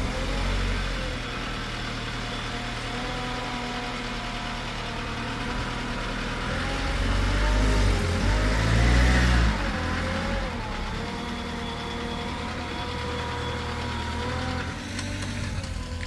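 Peugeot 405 car engine running at idle just after starting, revved up about eight seconds in and then settling back to idle.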